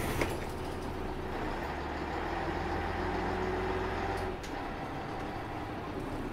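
Ikarus 280 articulated bus's diesel engine running, heard from inside the passenger cabin. The low drone grows heavier from about a second and a half in and eases off just after four seconds. Two short knocks come right at the start.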